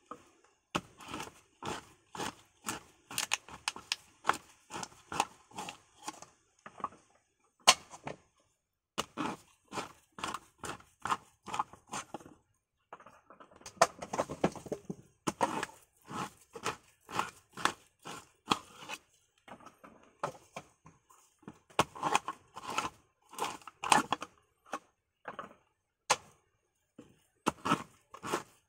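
Coconut meat being pried out of the shell with a sharp hand tool (tukalan) for copra: a long run of short cracking, scraping strokes, about two a second, with a couple of brief pauses.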